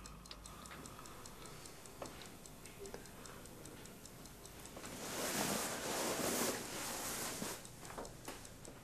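A clock ticking steadily. About five seconds in, a longer rustle of bedclothes as someone sits up in bed is the loudest sound, with the ticking going on underneath.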